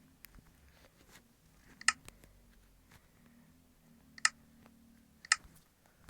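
A person coughing: three short, loud coughs, one about two seconds in and two close together near the end, over faint clicking.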